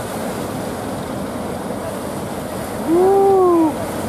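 Breaking surf washing steadily, with wind on the microphone. About three seconds in, a person gives one loud, drawn-out shout that rises and then falls in pitch, lasting just under a second.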